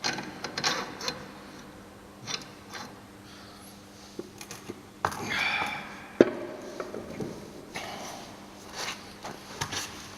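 Irregular metallic clinks, knocks and short scrapes of the rear axle being worked through a Honda CBF125's wheel hub and swingarm by hand, with one sharp knock about six seconds in.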